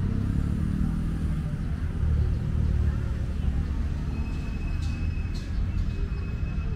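Low, steady rumble of distant city traffic, with faint voices in the background and a thin high tone held for a couple of seconds in the second half.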